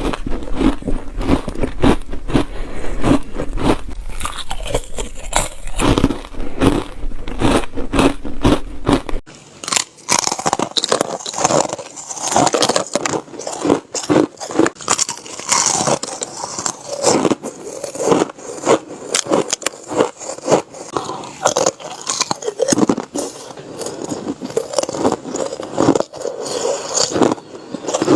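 Crunchy chip ice being bitten and crushed between the teeth close to the microphone, in rapid, irregular crunches. About nine seconds in, a low hum drops out and the crunching turns brighter and grittier.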